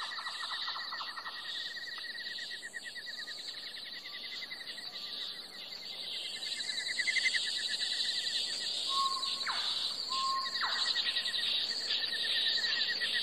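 Insects, crickets or bush crickets, chirping together in fast, steady trills. A few short bird notes come through around the middle.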